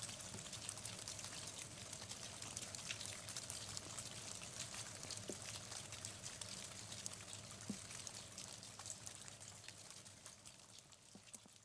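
Light rain falling, a soft steady hiss dotted with scattered drop ticks, fading out near the end.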